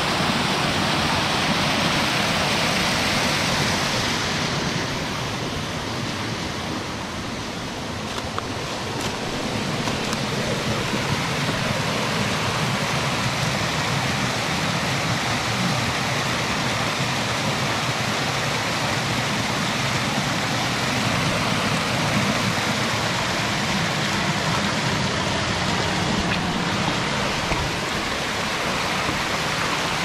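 Water of a small mountain stream pouring over rock cascades, a steady rushing splash that softens slightly for a few seconds about five seconds in, then holds steady.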